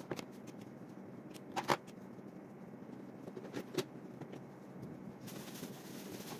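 A few light clicks and knocks of pens being handled on a desk, then a felt-tip pen scratching on paper near the end, over steady room noise.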